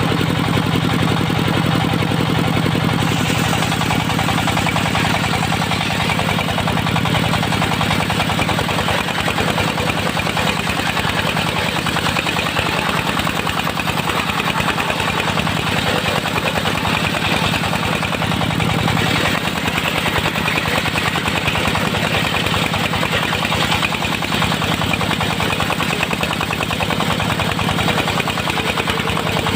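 Engine of a portable circular sawmill running steadily with a fast, even pulsing beat. A little more high-pitched noise comes in about three seconds in.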